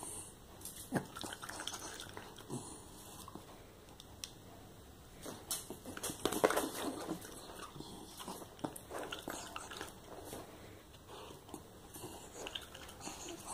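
A small dog biting and chewing strands of zucchini spaghetti taken from a hand, with irregular wet mouth clicks and snaps, busiest about six seconds in.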